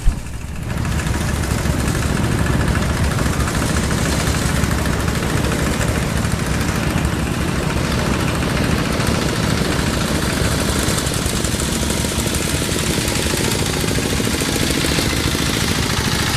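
Engine of rice-harvest farm machinery running steadily with a fast, even pulse, rising to full level about a second in.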